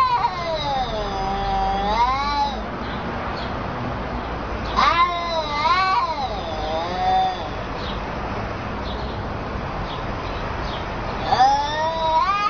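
Domestic cats caterwauling in a territorial face-off: long, drawn-out yowls that waver up and down in pitch. They come in three bouts, one at the start lasting about two seconds, another about five seconds in, and a third near the end.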